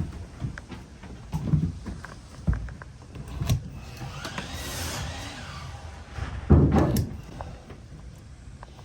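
Handling noise from flexible window flashing being cut and worked: scattered clicks, a rasping stretch around the middle, and one heavy thump about two-thirds of the way through.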